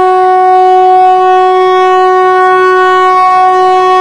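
Diesel locomotive air horn sounding one long, steady, loud blast.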